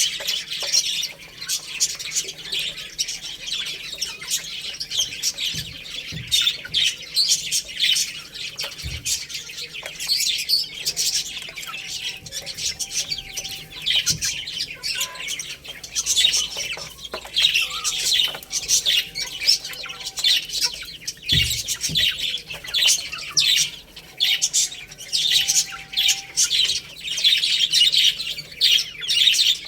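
A group of baby chicks peeping continuously, with many overlapping high, short chirps.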